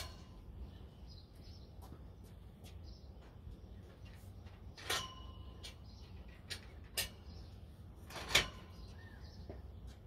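Bungee-cord hooks and the stretched tarp knocking against a carport's metal pipe frame: a few sharp clacks spread over the seconds, two of them ringing briefly like struck steel tube, the loudest near the end.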